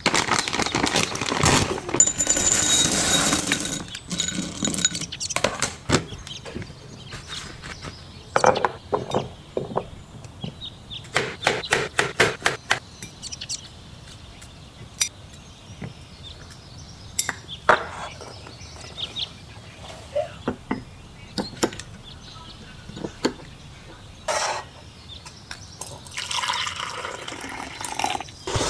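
Handling of a chocolate fondue set and tableware: repeated clinks and taps of dishes and utensils, with longer rustling stretches near the start and near the end.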